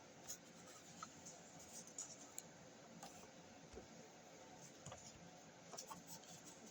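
Near silence: room tone with a dozen or so faint, scattered small clicks and light scratches of handling.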